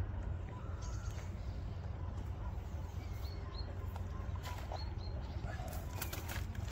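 Short high bird chirps, coming in pairs three times, over a steady low rumble; a few sharp clicks near the end.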